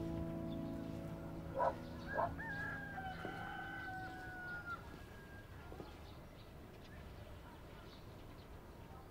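A rooster crowing: two short calls, then one long crow of about two seconds that falls slightly in pitch. Soft music fades out under it during the first few seconds.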